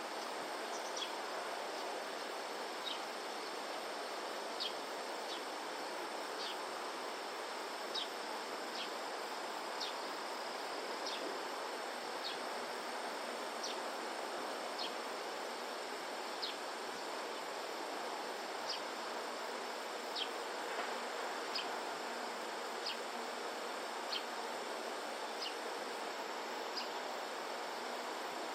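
Steady outdoor background hiss with short, high chirps repeating roughly once a second, from a small animal calling nearby.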